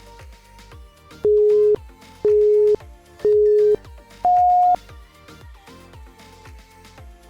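Workout interval-timer countdown: three beeps at one pitch, one a second, then a fourth higher beep, marking the change to the next exercise. Electronic background music with a steady beat plays underneath.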